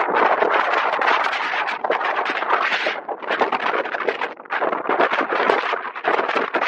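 Strong gusting wind buffeting the camera's microphone: a loud, rushing roar that swells and eases with the gusts.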